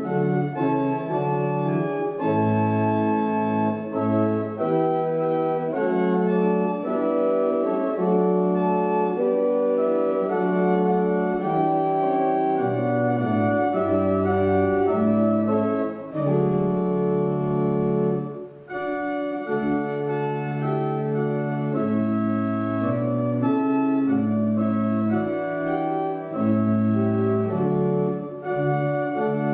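Church organ playing a slow hymn in held, steady chords, with a brief break about two-thirds of the way through.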